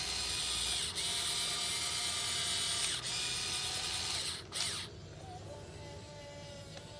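Electric motors and gearboxes of a Huina 1580 radio-controlled excavator whirring as it digs, with short breaks as the movements change. About five seconds in it drops to a much quieter hum.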